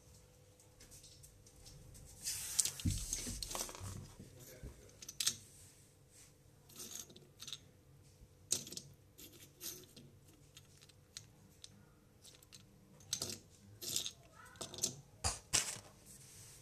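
Toy train engine being handled and set down on the floor: a rustle with a couple of low thumps about two to four seconds in, then scattered sharp clicks and taps.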